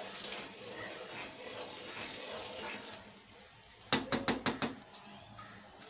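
A spoon stirring bubbling jaggery syrup in an aluminium pot, then a quick run of about five knocks a little after the middle.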